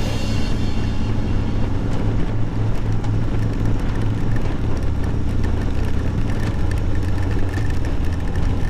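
Motorcycle engine running steadily while riding, a deep low drone under a constant rush of wind and road noise.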